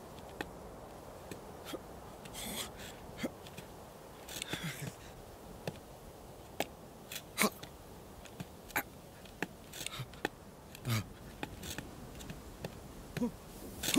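A sheep's hooves shifting on rock: scattered small clicks and soft scrapes, with a few short breathy hisses, over a faint steady hiss of outdoor air.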